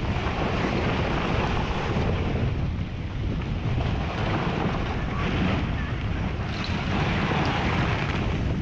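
Steady rushing roar of a debris flow: a fast torrent of mud, water and rocks pouring down a mountain channel, swelling and easing a little in loudness.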